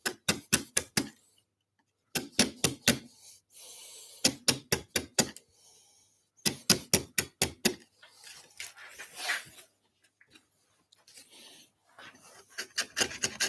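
Bench chisel held bevel-down and struck in quick runs of four or five sharp taps, chopping the waste out of the middle of a halving-joint housing in wood. A softer scraping of paring cuts comes just past the middle.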